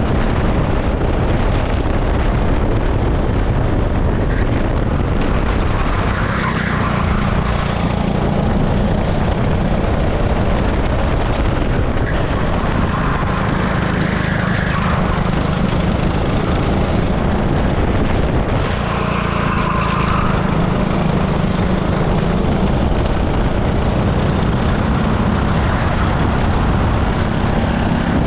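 An 18 hp super kart's engine, recorded onboard while lapping at racing speed. It is a loud, steady drone whose pitch dips and rises a few times.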